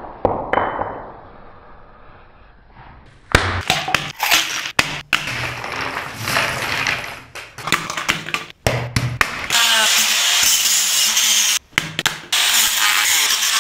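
Loose rifle cartridges and steel ammunition belt links clattering and clinking together in dense rapid rattles, with several abrupt breaks. The first few seconds are quieter, with a few light clicks, before the clatter starts.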